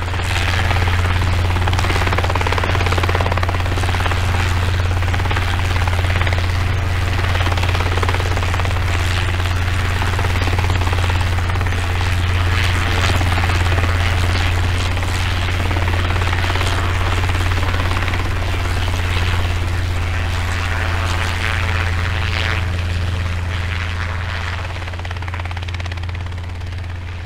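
Steady aircraft noise: a loud, low, even hum with a rushing hiss over it, easing down slightly near the end.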